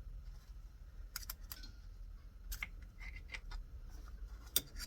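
A few light clicks and taps of small tools and metal parts being handled, with a sharper click a little after four seconds in, over a low steady hum.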